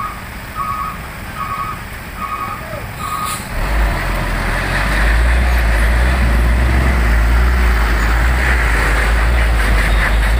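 A reversing alarm beeps about twice a second for the first three seconds. Then, about three and a half seconds in, a heavy box truck's diesel engine starts running hard and loud and holds steady, while its rear wheels spin on the oil-slicked road until they smoke: the truck is losing traction.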